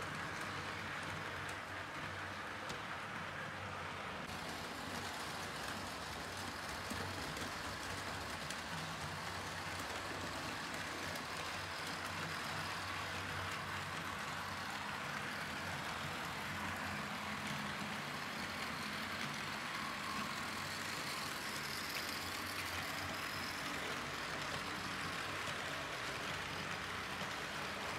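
Model trains running on a layout: a steady whirr of the small locomotive motors with the rumble of the wheels over the track.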